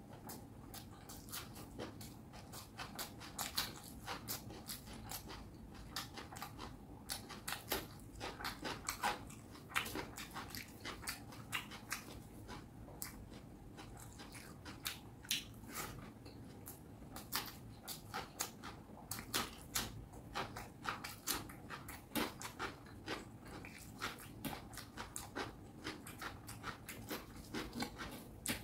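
Close-miked chewing and biting of a mouthful of fish curry and rice: a continuous, irregular run of short, sharp mouth clicks and smacks, several a second.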